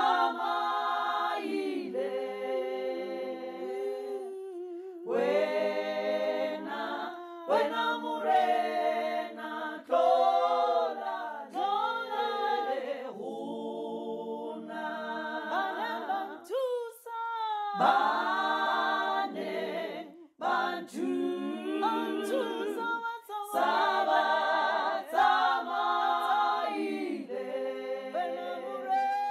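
One woman's voice multitracked into a six-part a cappella choir, the layered parts singing together in phrases broken by short pauses.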